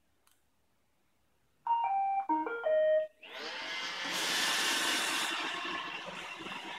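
Roomba robot vacuum playing its start-up tune of several short stepped beeps, then its vacuum motor and brushes spinning up and running steadily, with an extra hiss for about a second as it gets going.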